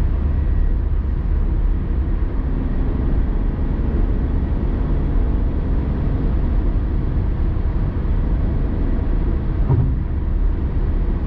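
Steady low rumble of a car driving: engine and road noise heard from inside the cabin.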